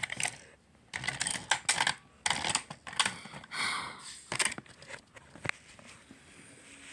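Handling noise around plastic toy trains and track: a run of irregular clicks, taps and short rustles, thinning out near the end.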